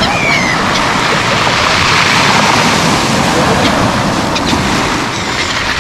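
Black Sea surf breaking and washing over a pebble beach in a steady rush, swelling about two seconds in. A gull gives a short falling call at the start.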